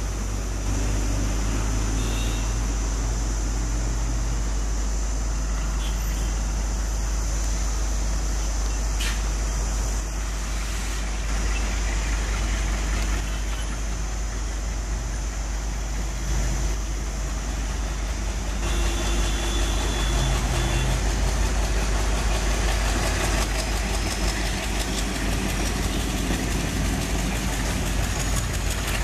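Two ALCo WDM-class diesel locomotives with 16-cylinder ALCo 251 engines working hard under load as they accelerate a long passenger train, a steady heavy engine drone that grows a little louder about two-thirds of the way through. The heavy black exhaust smoke goes with the engines being opened up to pick up speed.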